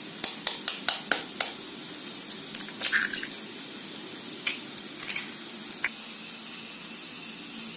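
A steel spoon tapping eggshells, a quick run of sharp clicks, then the shells cracking with a few scattered clicks as the eggs are opened into a glass bowl.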